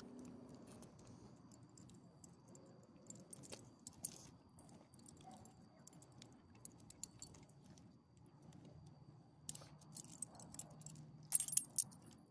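Metal ID tags on a small dog's collar jingling and clinking in scattered short bursts as the dog moves, with a loud quick flurry near the end.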